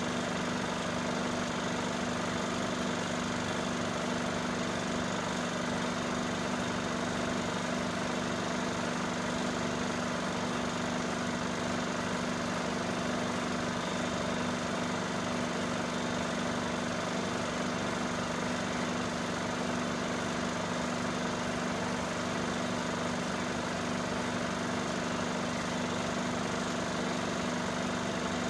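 Cine film projector running, a steady whirring hum that does not change.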